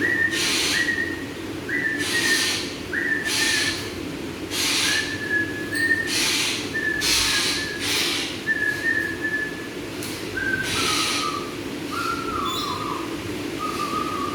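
Wild parakeet giving harsh screeches over and over, about one a second, with thin whistled notes alongside that sit a little lower in pitch toward the end; a steady low hum runs underneath.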